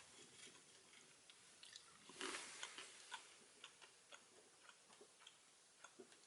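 Near silence with faint, irregular small ticks and a brief soft rustle about two seconds in.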